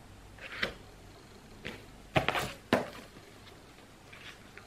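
Paperback books being handled: a handful of short knocks and rustles as they are picked up and put down, the loudest cluster a little after two seconds in.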